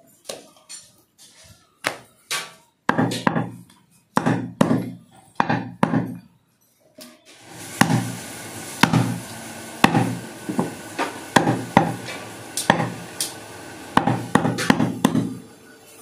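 Butcher's cleaver chopping goat meat and bone on a wooden block: repeated heavy chops, about one or two a second, with a short pause near the middle. A steady hum joins about halfway through.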